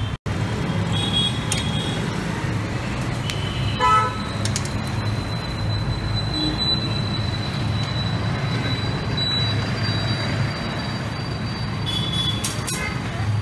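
Street traffic rumbling steadily, with several short vehicle-horn toots, the longest about four seconds in, and a thin high whine through the second half.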